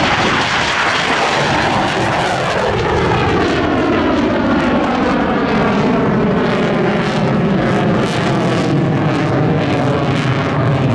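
Sukhoi Su-27's twin AL-31F turbofan jet engines in a loud pass, the pitch falling over the first few seconds as the fighter goes by, then a steady jet noise with a shifting, swirling tone.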